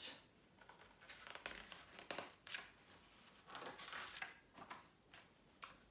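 Faint rustling and crinkling of paper with a few soft clicks, in two short clusters: the pages of a picture book being handled and turned.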